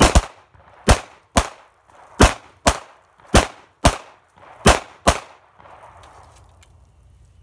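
Pistols fired by two shooters: about ten sharp shots, loosely paired about a second apart, ending about five seconds in. Each shooter is firing a timed five-shot string of a handgun qualification course.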